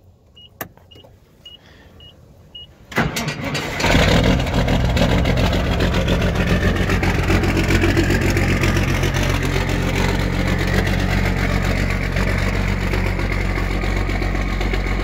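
Caterpillar 3406B inline-six diesel in a semi truck cold-starting after sitting unused for a while. A few short beeps and a click, then about three seconds in the starter cranks and the engine catches within a second, running at a steady idle.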